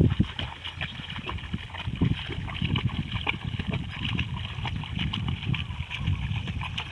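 Muddy paddy water sloshing and swishing unevenly as a long-handled wooden leveling board is dragged through a flooded rice seedbed to smooth the mud.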